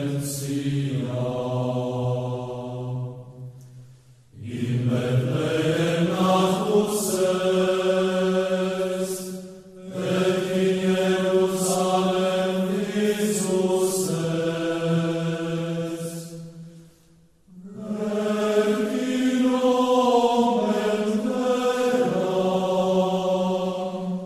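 Male voices singing a slow chant in long held phrases, breaking off briefly for breath about 4, 10 and 17 seconds in.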